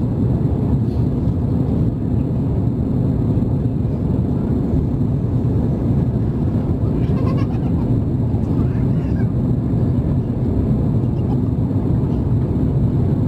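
Steady cabin noise of an Airbus A350-900 during the climb after takeoff: the Rolls-Royce Trent XWB engines and rushing airflow heard from a window seat behind the wing. Faint, brief high-pitched sounds come through about seven to nine seconds in.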